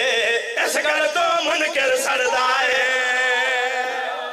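Group of men chanting a qasida refrain together over a PA system, several voices holding long drawn-out notes, with two sharp smacks about a second and two seconds in.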